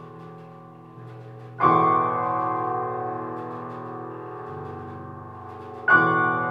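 Grand piano: a loud chord struck about a second and a half in and another near the end, each left to ring and die away slowly over lower held notes.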